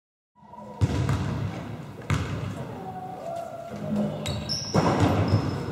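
A basketball bouncing on a sports hall floor: several separate thuds over low background chatter, after a brief silence at the start.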